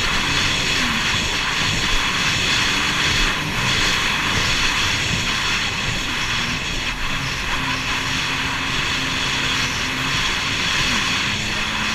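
Jet ski engine running steadily at speed, its low hum wavering slightly in pitch, under a constant rush of wind and water.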